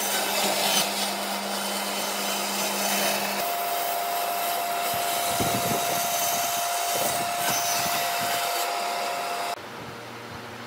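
Band saw cutting pine with a shop vacuum pulling dust through its hose: a steady loud rushing with a whine, whose pitch changes about a third of the way in. It drops away to a quieter hum near the end.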